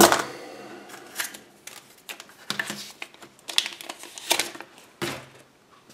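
Hands handling a Kinder Surprise egg's yellow plastic toy capsule and paper wrappers: a scattered series of small plastic clicks and taps mixed with paper rustling.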